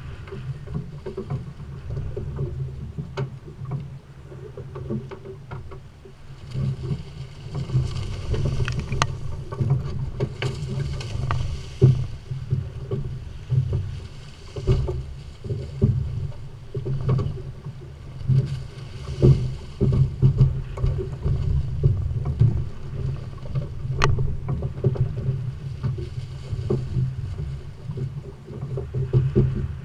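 Boat running with its Volvo Penta D4-225 diesel going steadily underneath, and water rushing and splashing along the hull. The water noise swells for a few seconds partway through. A few sharp knocks sound on the boat, one of them about 24 seconds in.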